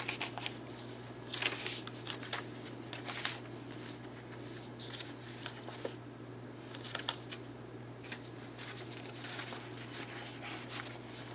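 Paper cards and tags rustling and sliding against each other as they are pulled from a paper pocket and handled, in short scattered rustles over a steady low hum.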